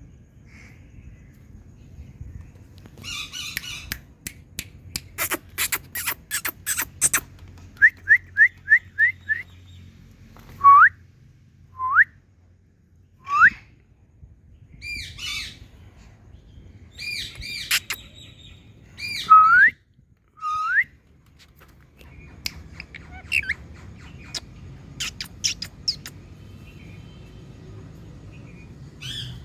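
Indian ringneck parrot calling: first clicks and harsh chatter, then a quick string of five short notes, three rising whistles, and several warbling squawks, with scattered clicks near the end.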